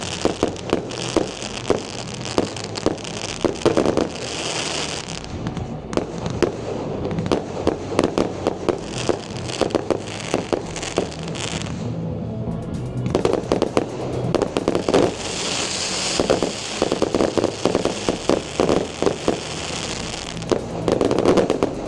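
Fireworks display going off: a rapid run of bangs and pops, with long stretches of dense crackling fizz several times over. Music plays underneath.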